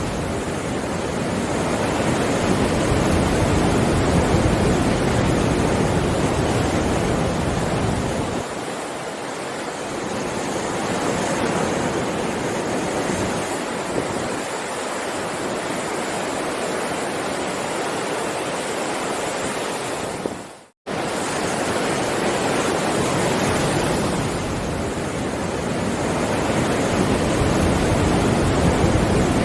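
Heavy sea waves surging in a continuous roar of surf that swells and eases. About two-thirds of the way through, the sound fades quickly into a brief dropout of silence, then returns at once.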